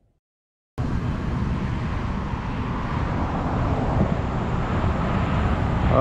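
Silence for under a second, then a sudden start of steady road traffic noise: a continuous rush with a heavy low rumble.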